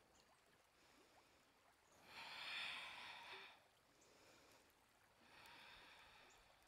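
A person's audible breathing during a yoga flow: a long, fairly strong breath about two seconds in, then a softer, shorter breath near the end.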